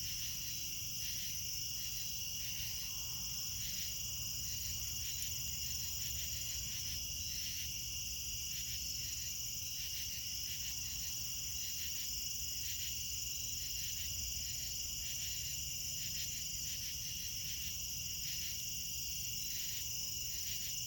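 Night insect chorus in late summer: a steady high-pitched cricket trill with a pulsing insect call that repeats a little faster than once a second, over a faint low rumble.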